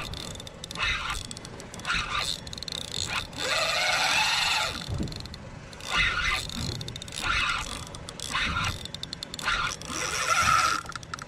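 Penn spinning reel being cranked hard against a heavy fish, giving short scraping, clicking bursts every second or so, with a longer, louder burst about four seconds in.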